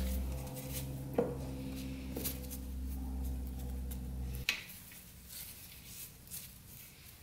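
Light metallic clicks and knocks as a dirt bike radiator is handled and fitted against the frame, a few sharp ones standing out. Under them a steady low machine hum cuts off abruptly about four and a half seconds in.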